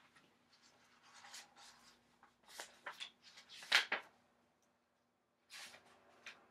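Pages of a picture book being handled and turned: soft rustles and brushes of paper, the loudest a little under four seconds in, then a pause of about a second and one more rustle near the end.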